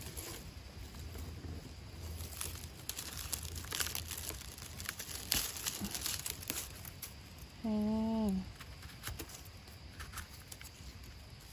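Dry leaf litter and twigs crackling and rustling as a wild bolete mushroom is grasped and pulled up from the forest floor. A brief hummed vocal sound from a person about eight seconds in, steady then dipping at its end.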